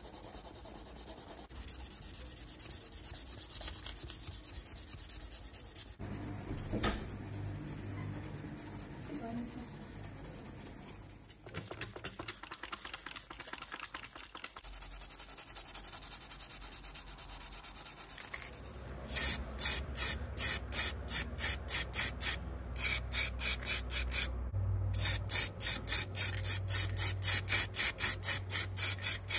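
A sponge scrubbing the metal body of a diecast model VW T1 bus, a soft rubbing noise. About two-thirds of the way in come loud, rapid bursts of spray hiss, about three a second with a low hum beneath, as the body is sprayed white.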